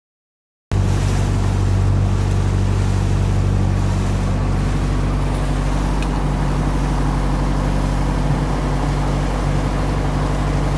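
A small fishing boat's engine running steadily at cruising speed, with wind and water rushing past the hull; it cuts in just under a second in.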